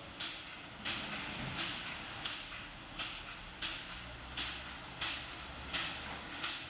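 PKP class Pt47 steam locomotive chuffing: sharp puffs of exhaust steam in an even, slow rhythm, about three every two seconds.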